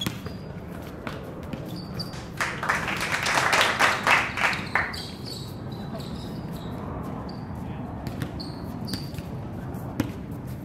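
Basketball bouncing on an outdoor court with short sneaker squeaks, as players run and dribble in a pickup game. There is a louder noisy stretch, about two seconds long, starting roughly two and a half seconds in.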